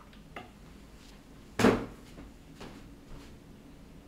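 A chunky plastic toy engine set down with a single loud knock a little under halfway in, with a faint light click or two of plastic being handled around it.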